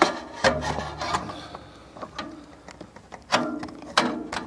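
Handling noise from a camera being moved and repositioned: a scatter of knocks, clicks and rubbing, with a brief low hum about half a second in.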